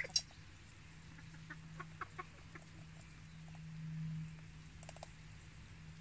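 Chickens clucking softly: a sharp click just after the start, a quick run of short clucks about a second and a half to two seconds in, and a couple more near the end, over a steady low hum.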